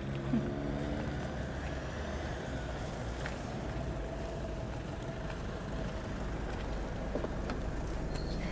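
Motor vehicle noise: a steady, even low rumble of engine and road traffic.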